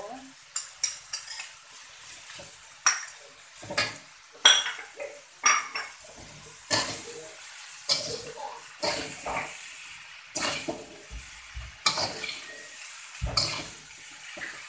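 A metal slotted spatula scrapes and clanks against a metal wok as fried yellow noodles are tossed, in strokes coming irregularly about once a second, over a faint sizzle.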